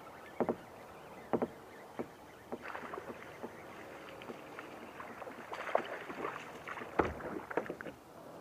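Hooked fish thrashing and splashing at the surface of the water, amid scattered knocks and clicks from the kayak and fishing gear. A heavy thud comes about seven seconds in.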